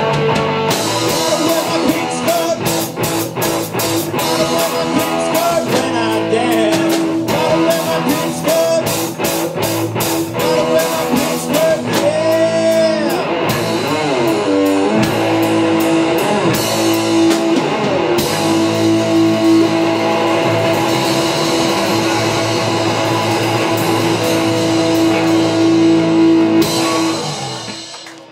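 Live rock band playing: distorted electric guitar, bass guitar and drum kit, with a long held guitar note and bending lead lines over the beat. The band stops near the end.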